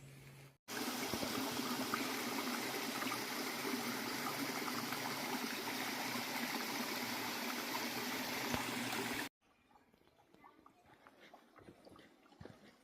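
Running stream water, a steady rushing trickle that starts abruptly about half a second in and cuts off abruptly about nine seconds in. Faint scattered ticks follow in the quieter stretch.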